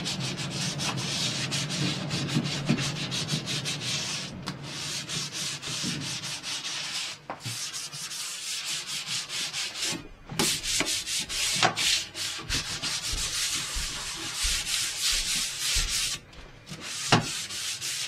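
Sanding block rubbed by hand over dried primer on a piece of furniture: fast, scratchy back-and-forth strokes in runs broken by a few brief pauses. This is the scuff-sanding of the primer coat before painting.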